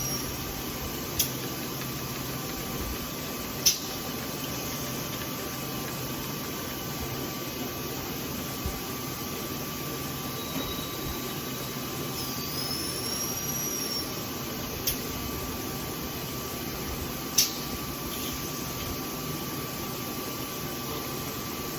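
Bridgeport milling machine running steadily with a faint whine, with a few sharp clicks and a brief high squeal a little past the middle.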